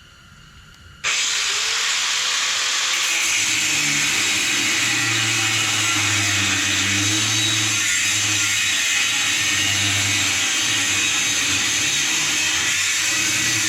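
Power cutting tool starting about a second in and running steadily under load as it cuts through a weld on steel exhaust tubing.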